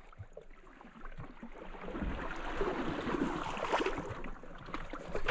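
River water swishing and splashing around a small paddle craft being poled upstream, as the pole is pushed into the mud and drawn back. It builds after about a second, with a few small knocks.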